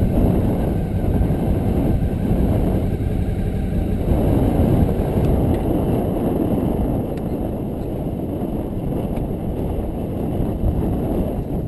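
Motorcycle engine running at low speed as the bike rolls slowly, heard as a steady low rumble.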